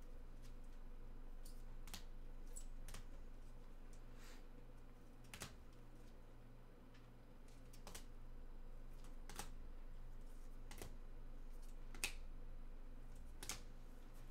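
Trading cards being handled and set down one after another during a recap, making a dozen or so sharp clicks and taps spaced a second or so apart, over a faint steady hum.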